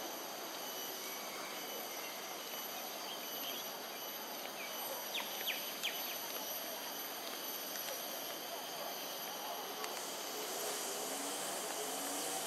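Outdoor ambience: a steady high-pitched insect drone over an even background hiss, with a few short, sharp high chirps about halfway through.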